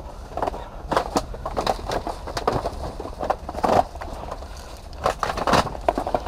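Loose wooden planks clattering and knocking underfoot as people clamber over a pile of scrap lumber, in quick irregular knocks throughout.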